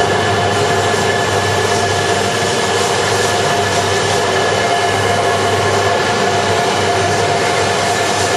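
Shinkansen train running along an underground station platform: a steady rolling noise with a steady whine over it.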